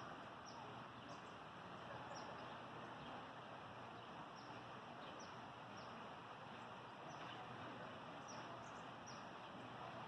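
Faint, short high chirps of a small bird, each dropping quickly in pitch, repeated about once or twice a second over a steady soft outdoor hiss.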